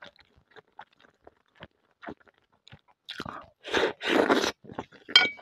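Close-up mouth sounds of a person eating pelmeni: soft, wet chewing clicks, then loud slurping as a spoonful goes into the mouth about three seconds in. A short clink sounds near the end.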